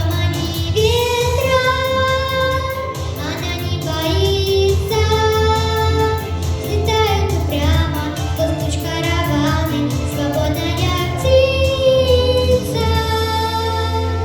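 A solo female voice singing a song melody with long held notes over an instrumental backing track.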